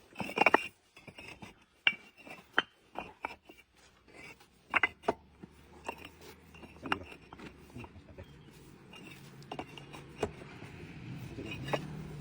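Bricks knocking and scraping against each other as they are stacked by hand: an irregular series of sharp clacks, thickest in the first half and sparser toward the end.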